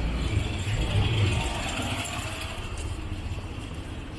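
Auto-rickshaw engine running as it passes close by, loudest about a second in, over steady street noise.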